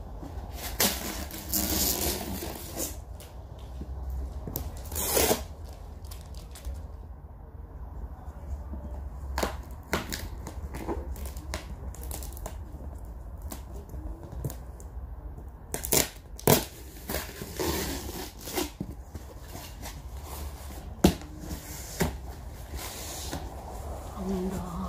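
A cardboard box being opened by hand: packing tape torn off and stiff cardboard flaps bent and scraped, giving scattered sharp crackles, rips and knocks.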